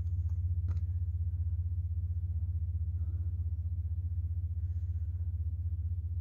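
Wind buffeting the handheld camera's microphone: a steady low rumble with a fast flutter, with a couple of faint clicks near the start.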